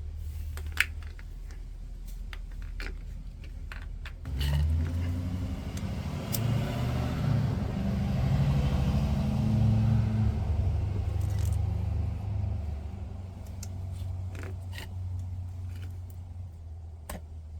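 A low mechanical rumble swells from about four seconds in, is loudest around nine seconds and fades by about thirteen seconds. It sits over a steady low hum, with scattered light clicks and rattles of small parts being handled.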